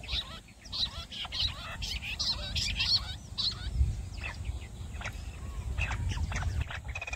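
Jungle bush quail calling: a rapid, overlapping run of short, high chirping notes, thickest in the middle and thinning toward the end.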